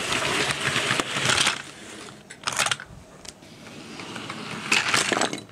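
Model railway wagons rattling along the track, a noisy clatter for the first second and a half, then two sharp clicks and another short burst of clatter near the end.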